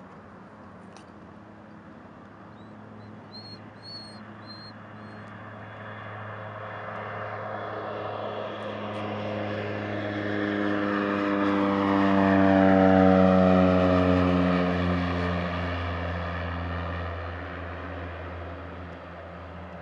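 Cessna 208B Grand Caravan's single turboprop engine and propeller at takeoff power, swelling as the plane lifts off and climbs past, loudest about thirteen seconds in. Its pitch drops as it goes by, and then it fades away.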